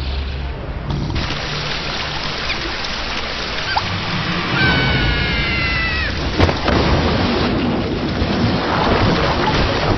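Heavy rain pouring down as a cartoon sound effect, filling in about a second in. About halfway through, a short high cry falls slightly in pitch, and a sharp knock follows soon after.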